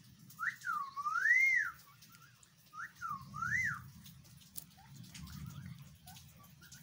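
Pet parakeet whistling: two phrases of clear notes that sweep up and down, the first about half a second in and the second about three seconds in.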